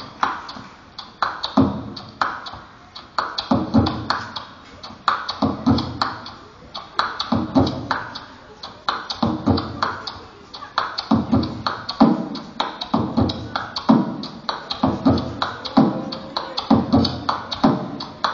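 Human beatboxing into a handheld microphone, amplified through a PA speaker: a steady beat of deep bass kicks, paired about half a second apart and coming round roughly every two seconds, with quick hi-hat and snare clicks in between.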